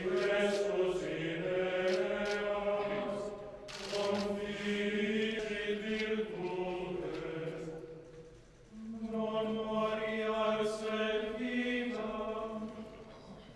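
Male voices singing a slow liturgical chant, in long held notes and phrases of a few seconds, with short pauses between phrases.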